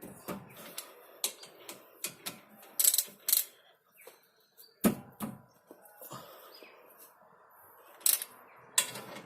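Hand tools clicking and knocking on the front brake caliper as its bolts are tightened back up after a brake pad change: irregular sharp metallic clicks, the loudest about three and five seconds in.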